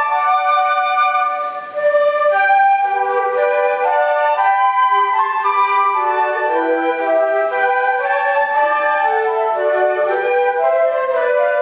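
Flute ensemble playing sustained notes in several parts, with the lines moving together, and a short dip in loudness about a second and a half in.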